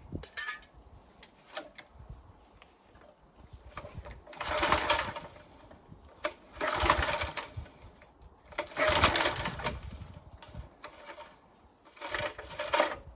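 Briggs & Stratton engine on a Mountfield Empress 16 lawn mower being cranked by its recoil pull cord, four pulls each lasting about a second, without it catching. The engine is getting no spark, which the owner puts down to the ignition coil.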